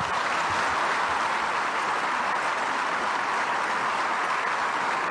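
A large seated audience applauding, a dense, steady clatter of many hands clapping at once.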